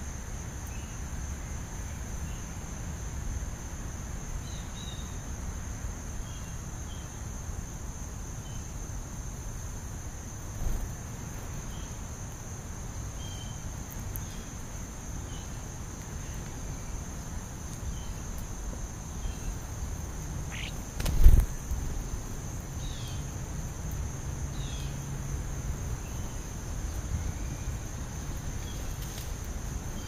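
Steady high-pitched insect chorus, with faint short bird chirps scattered through it. A single dull thump about two-thirds of the way through.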